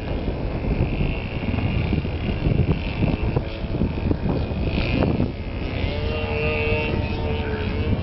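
Model airplane glow engine (OS 46 LA in a Tribute 36) buzzing in flight, over heavy wind buffeting on the microphone. A higher whine in the first half gives way to a steadier, lower drone from about six seconds in.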